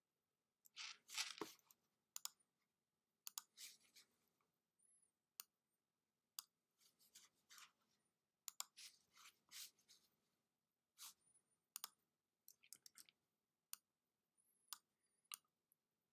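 Near-silent room tone broken by sparse, faint computer mouse clicks and a few brief soft rustling noises, the loudest about a second in.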